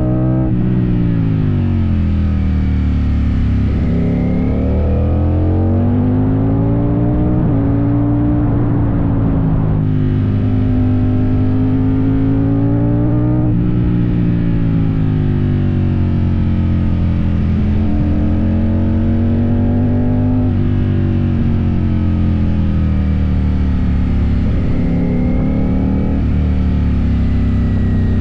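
Ducati Streetfighter V4S V4 engine running through an Arrow exhaust while riding, the revs rising and falling several times as the bike accelerates, shifts from third to fourth gear and backs off.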